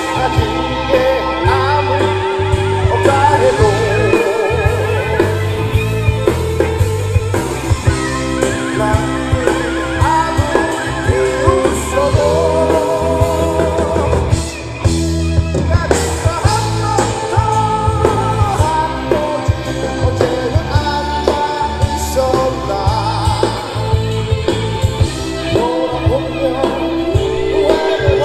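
Live rock band performance: a man sings into a microphone over electric guitar, bass and a drum kit, with regular drum hits throughout.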